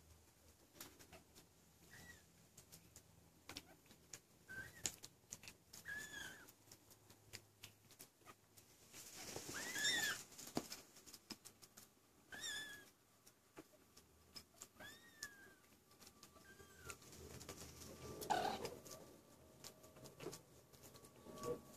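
Kittens mewing: short, high calls that rise and fall, about seven of them a couple of seconds apart, over scattered light clicks and taps.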